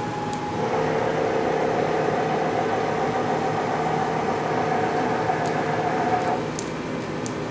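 Haas TM-1 toolroom mill's axis servo drive whining as the table is moved by handwheel jog: a steady two-tone whine that starts about a second in and cuts off abruptly about six seconds in, over a steady machine hum.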